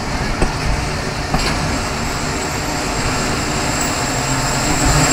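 Passenger train coaches rolling slowly, wheels rumbling on the rails with two sharp clanks from rail joints, heard from a coach window. A low hum grows louder near the end.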